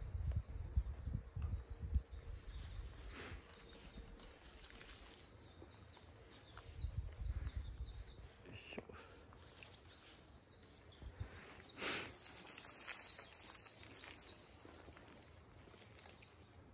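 Quiet outdoor ambience with faint bird chirps, some low rumbles near the start and again around seven seconds in, and a short rustle about twelve seconds in.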